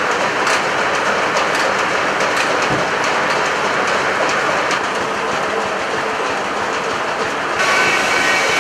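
Sawmill machinery running: a steady, loud mechanical din with scattered light ticks, like a log carriage riding its track. The sound changes abruptly near the end.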